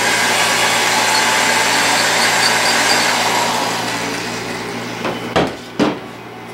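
Handheld power drill with a 13/64-inch bit boring into an elk antler tine: a steady grinding whine that winds down about four seconds in. Then two short puffs of breath, half a second apart, blowing the antler dust out of the fresh hole.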